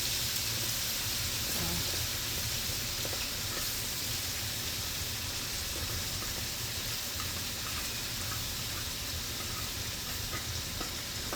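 Vegetables and small scallops frying in hot oil in a frying pan: a steady sizzle with faint scattered pops, over a low steady hum.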